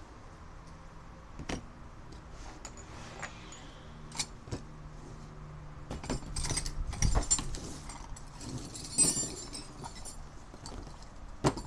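Metal hand tools (wrenches and pliers) clinking and jangling against one another and the wooden workbench as they are picked up and moved, in scattered clicks with a busier run of clinks past the middle.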